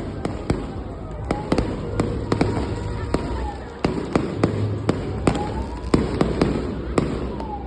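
Fireworks display: many sharp bangs and pops in quick, irregular succession over a continuous rumble of bursting shells.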